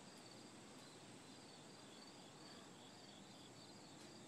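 Near silence with faint insect chirping, a short high chirp repeating evenly about two to three times a second.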